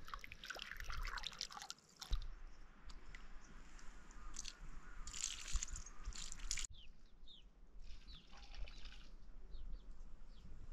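Dried beans being rubbed and rinsed with water in a steel bowl, crunching and splashing in bouts. After a cut about two-thirds through, faint bird chirps.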